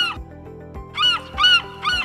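Gull calls: short, high, arched cries repeating about twice a second, with a pause at the start, then three in quick succession from about a second in. Background music with held notes underneath.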